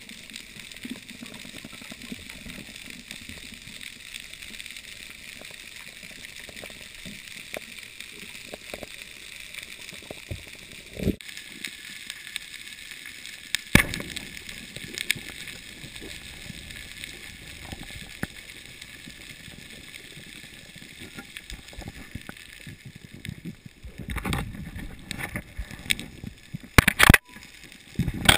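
Underwater ambience picked up by a diving camera: a steady hiss with scattered sharp clicks and knocks, which come thicker and louder near the end.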